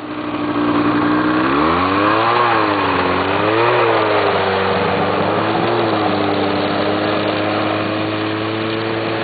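800cc Ski-Doo snowmobile's two-stroke engine running: it revs up about two seconds in, its pitch rises and falls a few times with the throttle, and then it settles to a steady speed.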